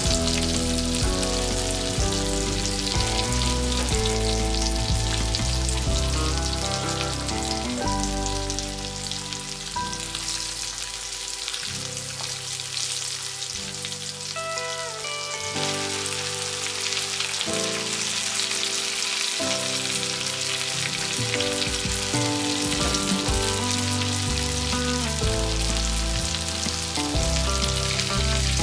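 Floured chicken karaage pieces sizzling steadily as they fry in bubbling oil in a frying pan, with background music playing over it.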